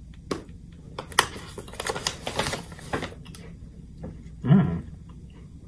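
Crisp crunching and chewing of a crunchy almond-flour Mexican Wedding cookie, a run of sharp crackly crunches, mixed with the crinkle of its foil-lined snack packet being handled. A short hummed "mm" about four and a half seconds in.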